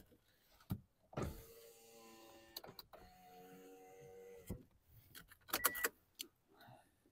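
A Suzuki Alto's front electric window motor runs for about a second and a half, stops with a click, then runs again for about a second and a half as the glass is moved. Sharp clicks come shortly before and again a second or so after.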